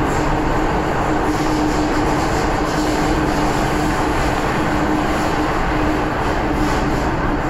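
MTR M-train electric multiple unit running at steady speed, heard from inside the carriage: an even rumble of wheels on rail with a steady hum held at one pitch.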